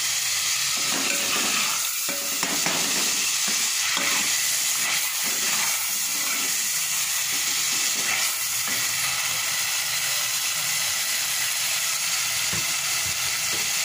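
Tomato-and-spice masala sizzling steadily as it fries in oil in an aluminium pot, with a steel ladle stirring and scraping through it.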